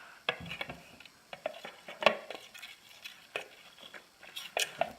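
A utensil stirring clear glue and glitter in a container, with irregular clicks and scrapes against the sides.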